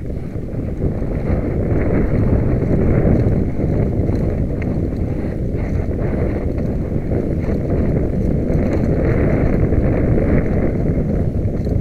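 Wind buffeting the microphone of a camera carried along on a ride over rough ground: a steady low rumbling rush with a few faint clicks and rattles.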